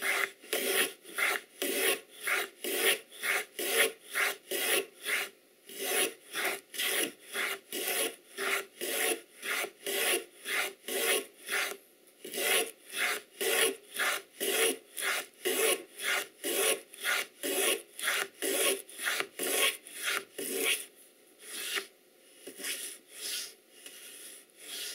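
Wooden grooving plane cutting a groove along the edge of a thin board: quick, short push strokes, about three a second, each a dry hiss as a shaving comes off. Brief pauses about 5, 12 and 21 seconds in; the last strokes are fainter.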